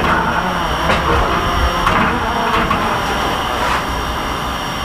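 A VR class Hr1 'Ukko-Pekka' steam locomotive stands with steam up, giving a steady hiss and rumble with a faint knock about once a second.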